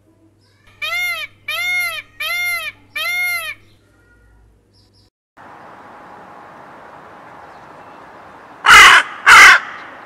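Indian peafowl (peacock) giving four arched, nasal calls in quick succession. Then, near the end, a hooded crow gives two loud harsh caws about half a second apart over steady outdoor background hiss.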